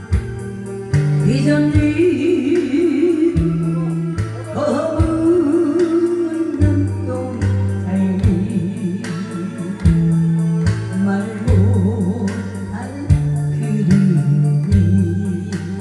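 A woman singing a Korean pop song in a thick, full voice through a handheld microphone and PA, over an instrumental backing track with a steady bass line.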